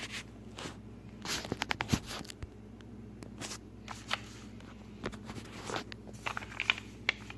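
Scattered close clicks, taps and scratchy scrapes of hard plastic being handled, over a steady low hum.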